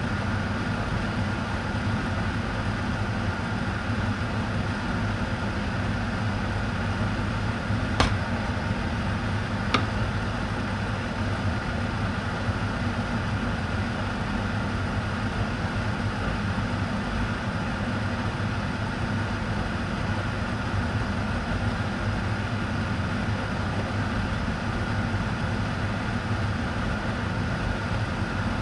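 A steady mechanical hum, with two short sharp clicks about eight and ten seconds in.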